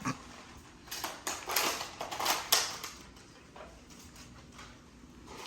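Irregular plastic clicks and clatter of toy foam-dart blasters being handled and readied: one sharp click at the start, then a quick run of clicks about one to two and a half seconds in, and a few faint ones after.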